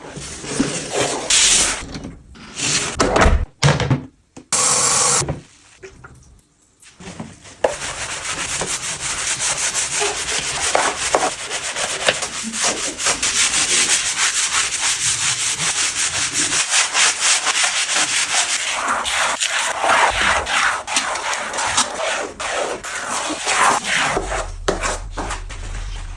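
Scrubbing: a few short bursts and a brief lull, then steady, rapid back-and-forth scrubbing strokes from about eight seconds in.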